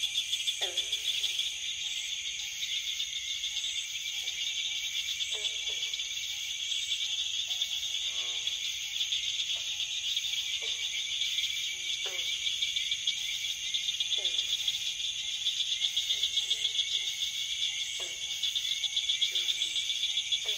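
Frog and insect chorus: a steady high insect trill throughout, with frogs calling in short downward-sliding croaks every second or two.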